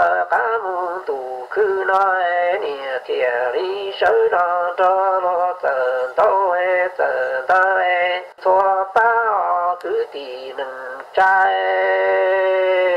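A solo voice singing in phrases with wavering pitch, ending on a long held note.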